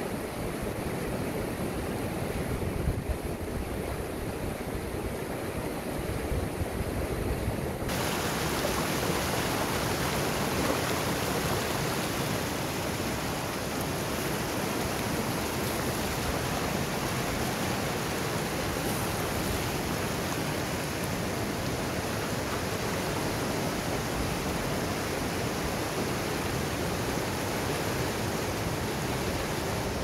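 Rushing water of a rocky mountain stream tumbling over boulders and rapids, a steady unbroken rush. About eight seconds in it abruptly becomes brighter and hissier.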